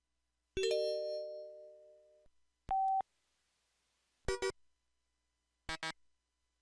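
PH-S6500 mobile phone system tones from its Yamaha MA-5 (YMU765) sound chip, heard clean from the line output. First a bell-like synthesized chime that fades over about a second and a half, then a short steady beep, then two quick double blips about a second and a half apart.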